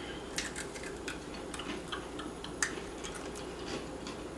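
Chewing crunch of a Fujiya Home Pie, a flaky puff-pastry cookie: a scatter of small, irregular crisp clicks.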